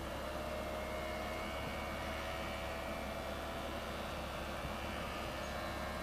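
Electric power soft top of a 2001 Porsche Boxster running as the top closes: a steady faint motor whine over a low even hum.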